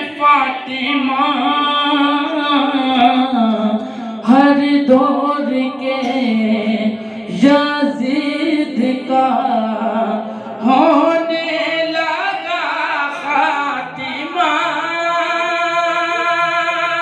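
A young man singing an Urdu manqabat (devotional praise poem) solo into a microphone, in long, wavering held notes with no breaks.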